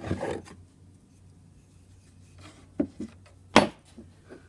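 Old hand tools being handled in a wooden toolbox: a short scrape, then two sharp knocks about three seconds in, the second louder.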